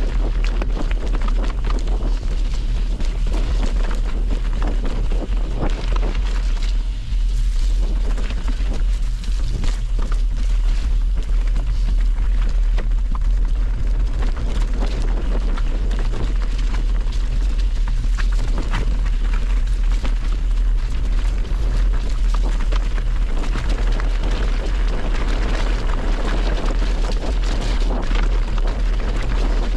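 Wind buffeting the microphone, a steady rumbling roar with a hiss on top.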